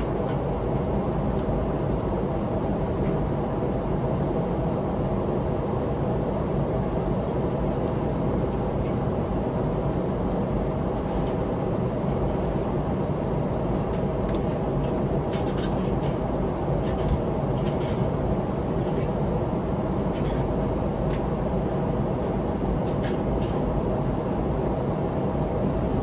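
Steady cabin noise inside a Boeing 777-300ER airliner in flight: a constant, even rumble of engines and airflow. Light clicks and clinks come and go through the middle.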